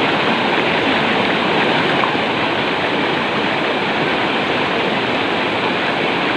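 Waterfall pouring into a river, a steady, even rush of falling water.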